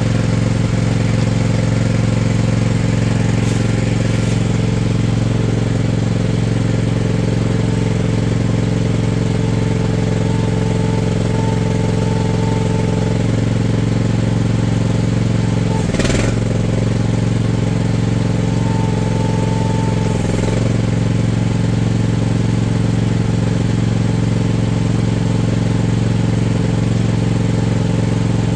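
Mach Pro MP15 mini excavator's engine running steadily while the new hydraulic thumb is worked. A thin higher whine comes in twice for a few seconds, and there is one sharp knock about halfway through.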